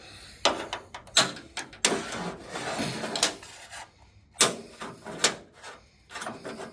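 Metal clacking, knocking and scraping as a magnetic pickup rod is worked around inside a truck's tailgate to pull out loose broken latch pieces. There are several sharp knocks, with a longer scraping stretch about two seconds in.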